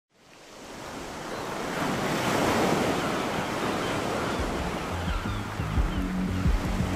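Sea waves surging and washing onto a beach, fading in from silence. Low bass notes of music come in about two-thirds of the way through.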